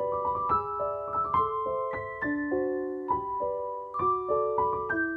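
Background piano music: a gentle melody of single struck notes, several a second, each ringing on as it fades.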